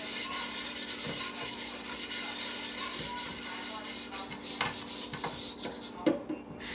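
Homemade slime being handled and worked: a steady rubbing noise with scattered soft sticky clicks, over a faint steady hum.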